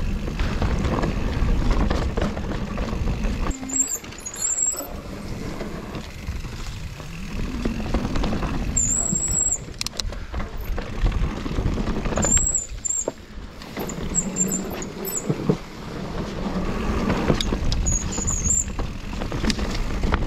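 Mountain bike ridden over a rough dirt trail: a steady rumble of tyres and wind, with the bike rattling and knocking over bumps. The brakes squeal briefly and high-pitched several times.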